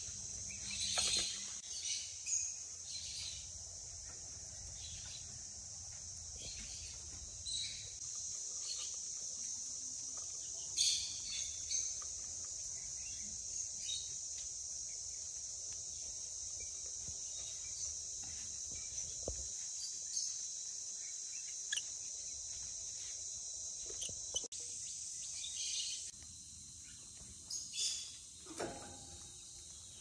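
Lovebird chicks making short, squeaky high-pitched begging calls on and off as the mother feeds them, over a steady high-pitched shrill that weakens near the end.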